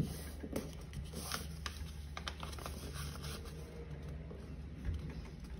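A sheet of paper being folded and creased by hand against a cutting mat: faint rustles and scrapes of paper under the fingers, with a sharp tap right at the start, over a steady low hum.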